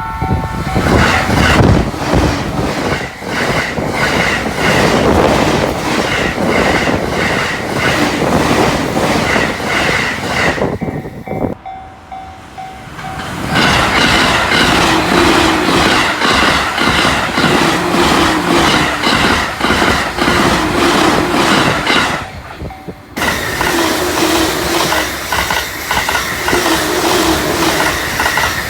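Joban Line electric trains passing at high speed, above 120 km/h, one after another. The wheels clatter in a fast even rhythm over the rail joints. The sound drops off about 11 seconds in, and cuts off suddenly about 23 seconds in as the next pass starts.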